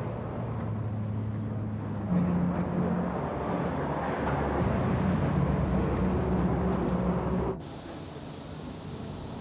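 Street traffic: a heavy vehicle's engine hums as it runs by, louder for several seconds in the middle, then breaks off abruptly near the end.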